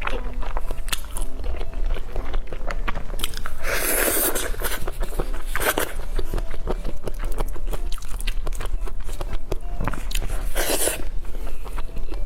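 Close-miked biting and chewing of pork knuckle, with wet smacking clicks throughout. A few short, louder hissing bursts come about four, six and eleven seconds in.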